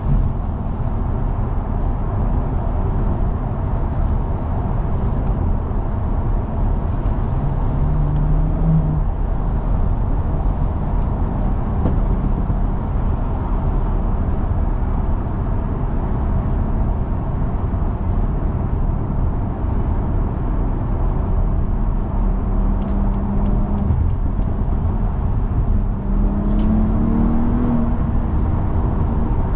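BMW 340i's tuned, decatted B58 turbocharged straight-six driving along under steady road and tyre noise, the engine note rising briefly twice, about a third of the way in and near the end, as it pulls.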